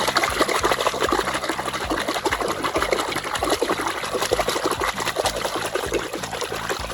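Water running and splashing steadily as toy vehicles are washed, over faint background music.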